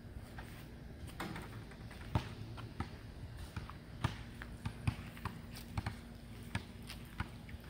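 Footsteps on a paved driveway, irregular light taps and clicks about once or twice a second, over a faint steady hum.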